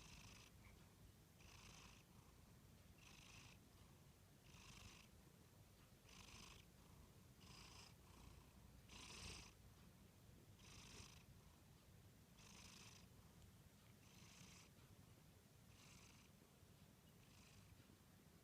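Sleeping cat snoring faintly, a soft wheezy breath about every second and a half.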